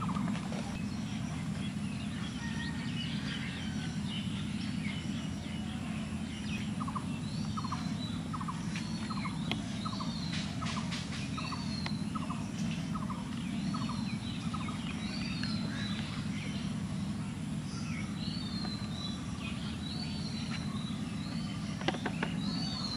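Birds calling: a high arching note repeated every second or two, and for a stretch a run of evenly spaced short notes about two a second, over a steady low background hum.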